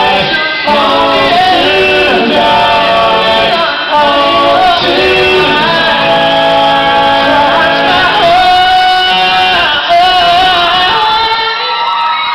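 Pop-rock band playing live: a lead vocal sings and holds long notes over drums and guitars.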